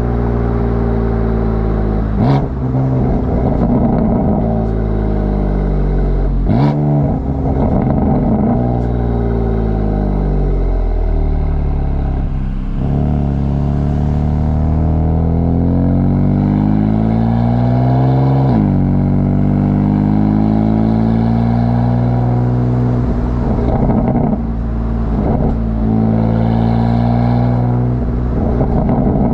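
BMW F82 M4's twin-turbo inline-six exhaust, picked up by a microphone at the tailpipe, accelerating through the gears: the engine pitch climbs, then drops sharply at each upshift. There are a couple of sharp cracks in the first seven seconds, and it settles into a steady cruise for the last ten seconds.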